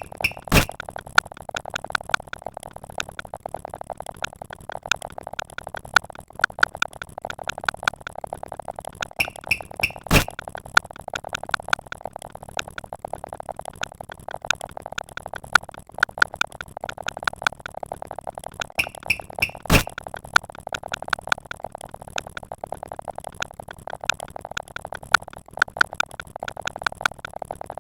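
Electronic synthesizer music made of a rapid stream of short blips and clicks, repeating in a loop, with a louder sharp hit about every ten seconds, three times.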